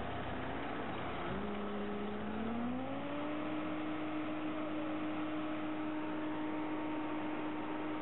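A farm machine's diesel engine speeding up over a couple of seconds, its drone rising in pitch, then running steadily at the higher speed.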